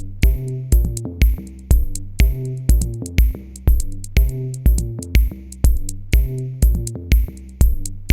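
Electronic background music with a steady drum-machine beat, about two kicks a second, over bass and synth notes.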